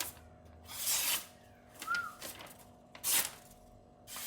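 Freshly sharpened knife slicing through a sheet of paper: three short hissing cuts about a second apart, with a brief squeak near the middle.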